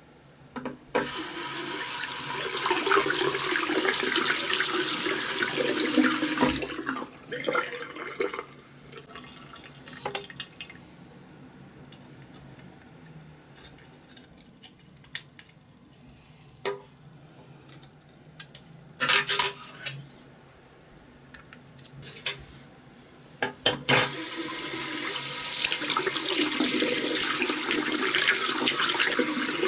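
Water running from a tap in two long spells, with scattered clicks and knocks of small parts being handled in between.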